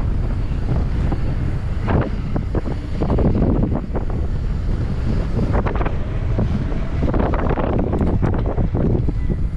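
Wind buffeting the microphone of a mountain-bike ride, with a clatter of short knocks and rattles from the bike rolling over rough trail, busiest around two seconds in and again in the second half.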